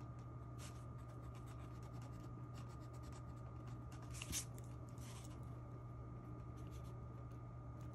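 Pen-style stick eraser rubbing and scratching across sketchbook paper in many short, quick strokes, lifting pencil marks, with one louder stroke about four seconds in.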